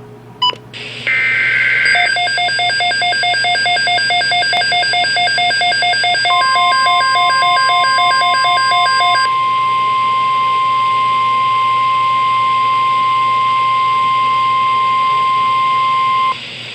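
Emergency alert tones of a weather radio broadcast. About a second in there is a short burst of two-pitch digital header data. Rapid pulsing beeps at several pitches run for about seven seconds, joined about six seconds in by the steady single warning alarm tone, which holds until it cuts off suddenly near the end.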